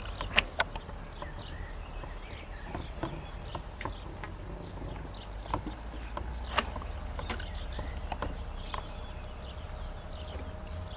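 Outdoor pond ambience: scattered sharp clicks and short faint high chirps, likely from wildlife around the water, over a steady low rumble.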